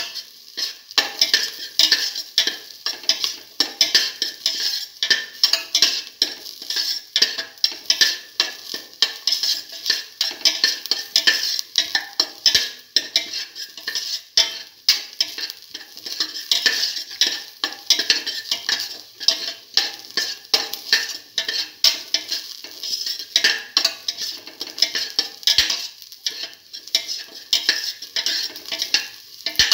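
Sliced onion, shallots and ginger sizzling in oil in a stainless steel pan, stirred without pause, with a spoon scraping and tapping against the pan many times a second.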